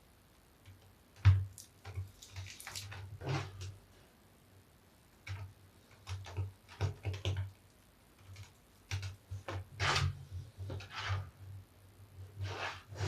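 Large soapy bath sponge being squeezed and kneaded with soap scraps, giving irregular wet squelches. Starts after about a second, with a sharp squish soon after and another strong one near the end.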